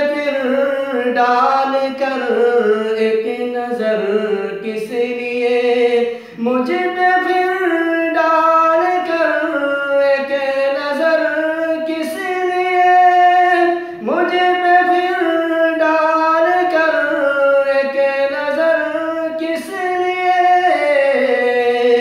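A man singing an Urdu kalam solo and unaccompanied, in long held and gliding melismatic notes, with short breaks between phrases about six and fourteen seconds in.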